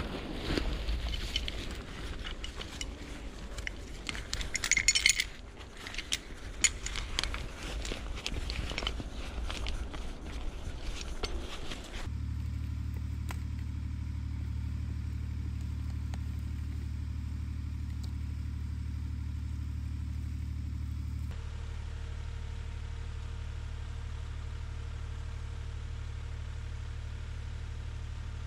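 Metal chain clinking and scraping as a tow strap and chain are handled and fastened around logs. About twelve seconds in it changes abruptly to a Lamborghini tractor's engine idling with a steady low hum, which continues slightly quieter from about twenty seconds in.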